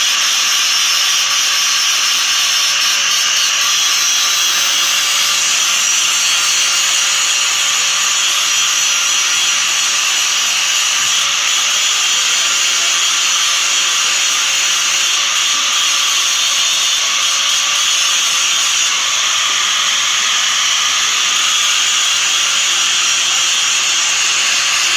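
Grinder sharpening metal: an unbroken, steady high hiss of abrasive rubbing against steel.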